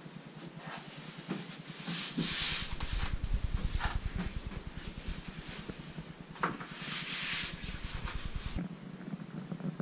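Rubbing and scraping as a cut-out board is pressed and fitted over an ambulance rear-door window, with two longer scratchy rustles, a few light knocks and one sharp click past the middle, over a low hum.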